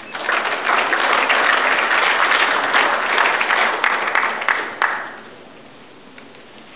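Audience applauding, a dense patter of many hands that starts at once and dies away about five seconds in.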